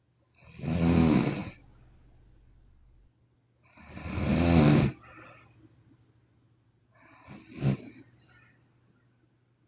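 A sleeping woman snoring: two long snores about three seconds apart, then a shorter, sharper snort-like one near the end, with quiet breathing in between.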